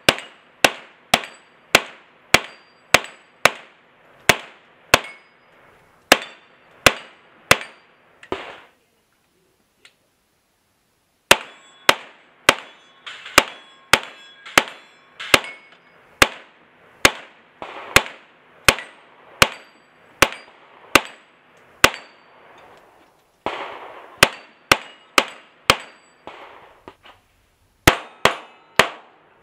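9mm gunshots fired in quick strings, about two a second, from a CMMG Guard MkGs pistol-caliber carbine, with steel plates ringing as they are hit. The shots break off for about three seconds a third of the way in, then resume.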